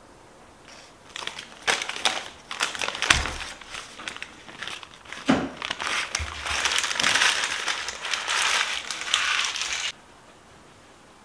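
Irregular crinkling and crushing sounds of hands handling food or its wrapping, a run of crackly clicks that grows denser and cuts off abruptly near the end.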